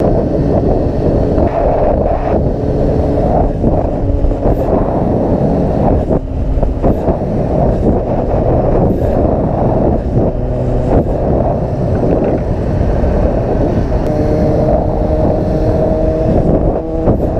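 Motorcycle ridden at highway speed: heavy wind buffeting on the rider's camera microphone over the steady drone of the bike's engine. From about fourteen seconds in, a steady engine hum of several pitches stands out more clearly.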